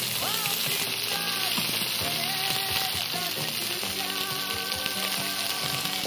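Chicken sausages and potato chunks sizzling in a frying pan, a steady hiss of frying fat, with background music playing over it.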